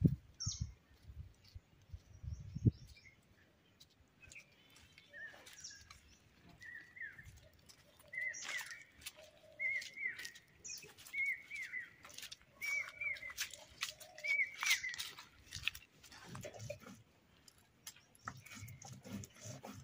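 A bird repeating the same short chirping note about once a second, over faint scattered clicks and rustles. Near the end, a low scraping rub of spices being ground by hand with a stone on a flat stone slab.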